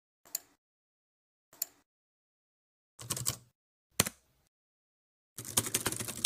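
A few short, sharp taps spaced a second or so apart, then a denser clatter of rapid hits lasting about a second, about five and a half seconds in, with dead silence between them.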